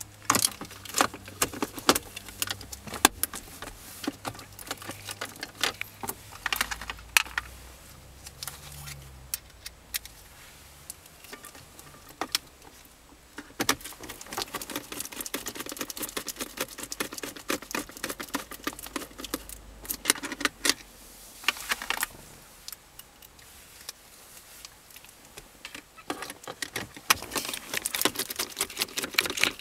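Hard plastic center console trim of a 2003–2007 Honda Accord clicking and rattling as a screwdriver pries at the storage pocket. Irregular sharp clicks and small taps come in bursts, with quieter gaps between them.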